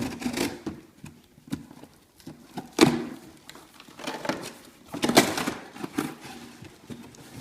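A box being handled and opened: irregular knocks and rustling, with the sharpest knocks about three and five seconds in.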